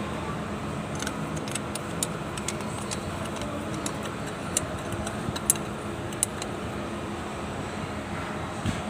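A steady mechanical hum with a few sharp metallic clinks scattered through it.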